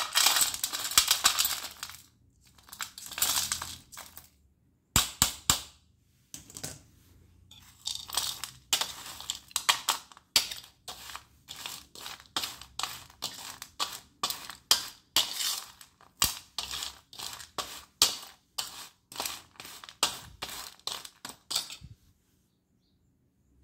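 Broken slate pencil pieces pouring from a wire-mesh strainer onto a stainless steel plate and being tossed about on it: a dense rattling clatter at first, then a long run of quick, separate clatters that stops shortly before the end.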